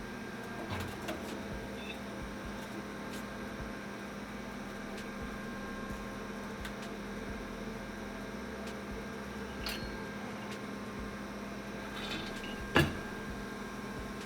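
Steady machine hum of shop equipment, with a few faint light clicks and one sharp knock near the end.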